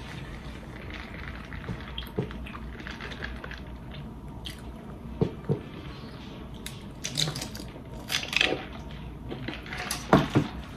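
Close-up eating mouth sounds: chewing, with wet clicks and smacks, and soda sipped through a straw. The clicks come sparsely at first and grow more frequent in the second half.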